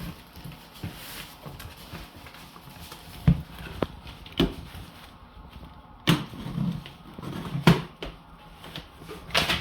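Packaging and parts being handled: about five separate knocks and clunks with rustling between them.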